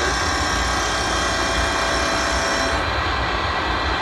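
CNC lathe milling spline teeth into a bronze shaft with a live-tool carbide form cutter: a steady run of cutting and machine drive noise. A high hiss in it stops about three seconds in.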